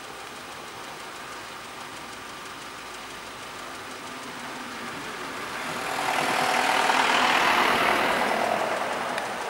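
Car engines idling steadily, then a vehicle passing close by: its sound swells about six seconds in, peaks and fades near the end.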